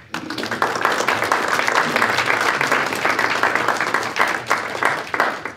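Audience applauding, a dense run of clapping that thins out and stops near the end.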